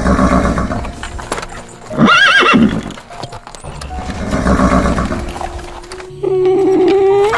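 Horse whinnying: one wavering, high-pitched neigh about two seconds in, with breathy noisy sounds before and after it. A different steady pitched sound starts about six seconds in.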